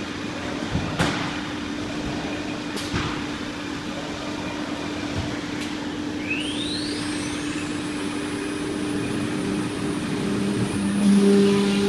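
Philicam FLDM1325AD-8 ATC CNC router running with a steady hum, a few sharp clicks in the first half at its tool-change rack, then its spindle spinning up with a steeply rising whine about six seconds in that settles into a steady high whine. Near the end lower steady tones join as the gantry carries the spindle over the board.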